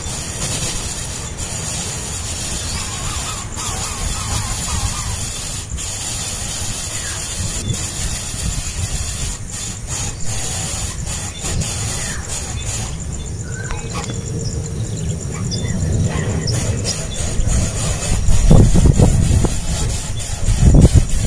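Nestling birds giving faint, short begging cries over a steady low rumble and hiss; the rumble grows louder near the end.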